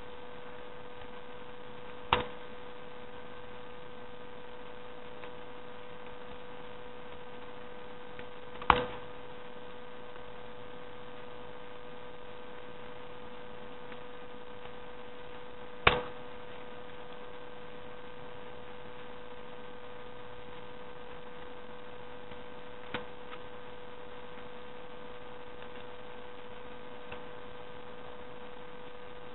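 Steady electrical hum, one constant tone with fainter higher tones above it, broken by four sharp clicks several seconds apart.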